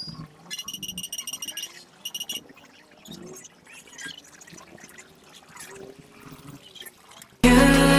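Faint outdoor background with distant voices and a stretch of rapid, high-pitched ticking in the first two seconds. Loud music cuts in suddenly near the end.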